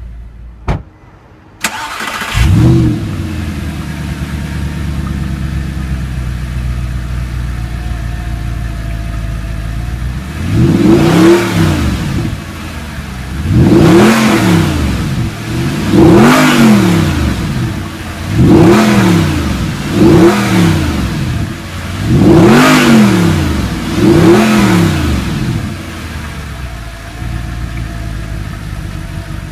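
2009 Audi R8's mid-mounted 4.2-litre V8 starting about two seconds in with a loud flare, settling to a steady idle, then revved by about seven quick throttle blips, each rising and falling, before returning to idle near the end.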